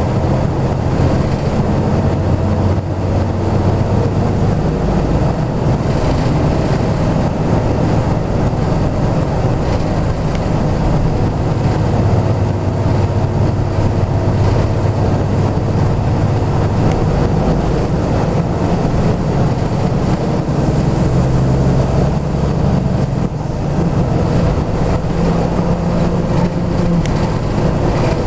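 1999 Hino Blue Ribbon city bus heard from inside the cabin while driving: a steady diesel engine drone over road rumble. The engine note shifts a few times and rises about two-thirds of the way through as the bus picks up speed.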